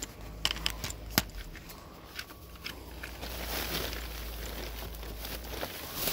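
Rummaging through rubbish in a large metal bin: scattered clicks, knocks and crackly rustling of items being moved about, over a steady low rumble.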